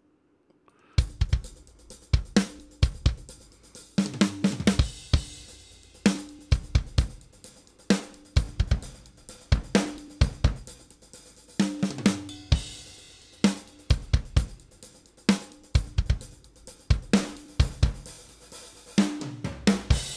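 Soloed raw rock drum-kit multitracks played back: kick, snare, hi-hat and cymbals through the close mics with overheads and room mics blended in, the low ribbon room mic turned up for a bigger room sound. The kit comes in about a second in and plays a continuous groove.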